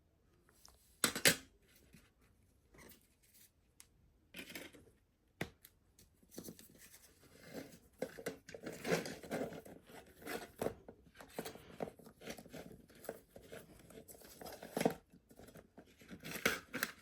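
A CD case and its packaging being handled: a sharp plastic click about a second in, then a long run of scraping, rustling and small clicks.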